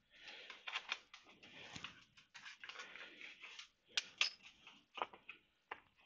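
Small screwdriver scraping and clicking against the plastic casing of a smoke alarm as it is pried at the snap-fit clips, with a few sharper clicks in the second half.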